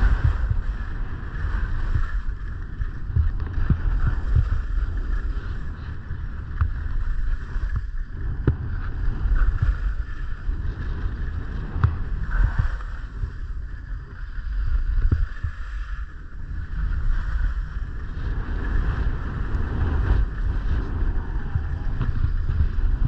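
Wind buffeting the microphone of a camera moving fast downhill, a rough, gusting rumble, over a continuous hiss and scrape of edges sliding on groomed, packed snow.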